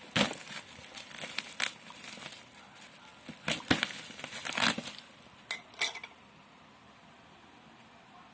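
Packaging being handled while a power supply is unboxed: crinkling and rustling with sharp clicks and knocks, which stop about six seconds in.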